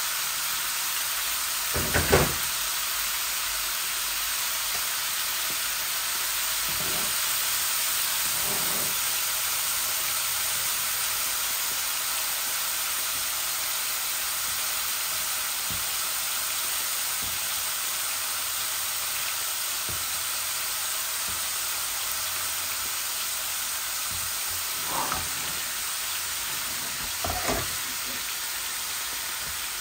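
Rohu fish and diced papaya with onion frying in hot oil in pans on a gas hob, a steady sizzle. A few short knocks of stirring against the pan come about two seconds in and again near the end.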